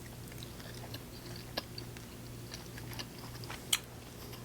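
A person chewing chicken close to the microphone: soft, sparse mouth clicks and smacks, the sharpest a little before the end, over a faint steady hum.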